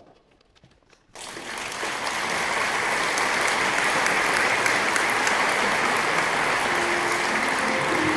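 Audience applauding, starting suddenly about a second in after a moment of near silence and holding steady.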